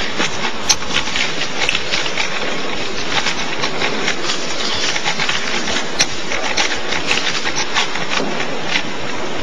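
Steady noise of a crowded hall, with scattered sharp clicks throughout.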